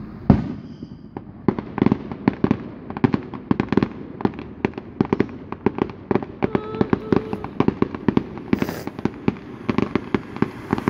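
Aerial fireworks going off: one loud bang just after the start, then from about a second and a half a dense, rapid crackling of many sharp pops as bursts of sparks explode overhead.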